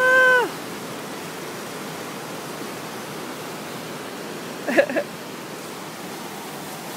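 Mountain river rushing steadily below, a constant wash of white water. A short high-pitched call rings out at the very start, the loudest sound, and another brief wavering call comes about five seconds in.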